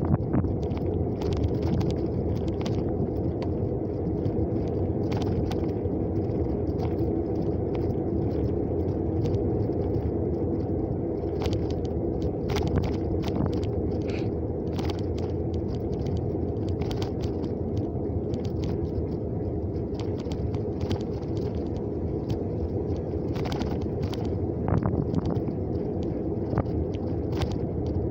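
Car driving at road speed: a steady rumble of tyres and engine heard from inside the cabin, with scattered light clicks and rattles.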